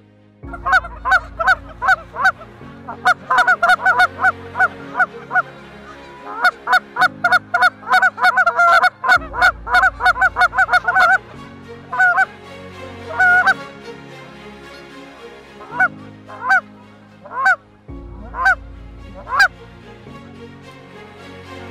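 Canada geese honking and clucking in fast, overlapping runs for the first half, then single honks spaced about a second apart. A low sustained music drone runs underneath.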